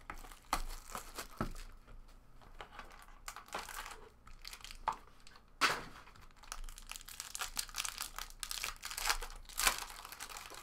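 Foil wrapper of a trading card pack crinkling and tearing as hands open it: irregular rustling with sharp crackles, loudest about halfway through and near the end.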